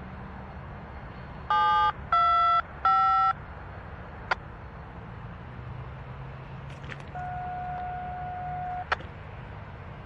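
Radio scanner tones: three short beeps in quick succession, a sharp click, then one longer steady beep that cuts off with a click, typical of railroad radio signalling tones. Underneath, a diesel locomotive rumbles low and steadily.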